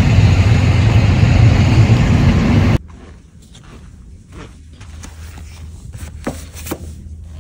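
Loud, steady outdoor rumble, like street traffic or an idling vehicle, that cuts off abruptly about three seconds in. A quiet room follows, with a faint hum, soft rustling and a few light taps as a hand brushes along book spines on a shelf.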